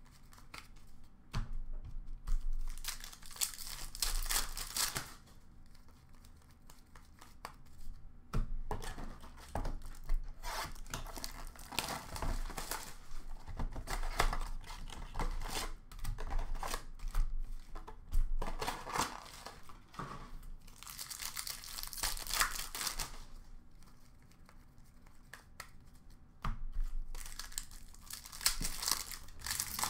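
Foil wrappers of Upper Deck hockey card packs being torn open and crinkled in several bursts of a few seconds each, with cards handled and flicked through between them.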